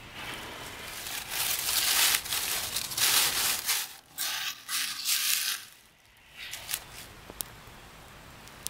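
Dry leaves and twigs crunching and rustling as they are pushed and packed into a kindling fire in a cinder block grill, in loud bursts for about six seconds. After that it goes quieter, with a few sharp clicks.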